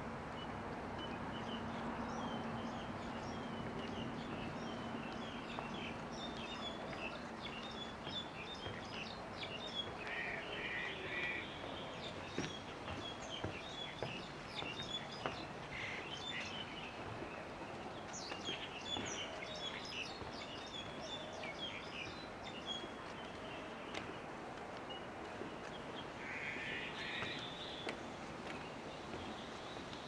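Birds chirping and calling, many short notes with a couple of quick trills, over a steady outdoor background hum. A low steady drone sounds for the first several seconds, then fades out.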